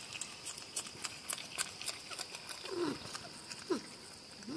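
Two porcupines eating peanuts, with a steady run of sharp clicks and crunches as they chew, and three short whines that drop in pitch in the second half. The whines are the sound of the pair squabbling over the food.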